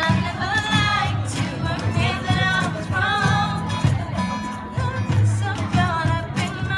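Women singing together to strummed acoustic guitars in a live acoustic performance.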